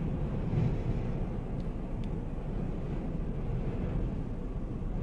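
Strong gusty wind rushing across the microphone, a steady low rumble that swells and eases slightly.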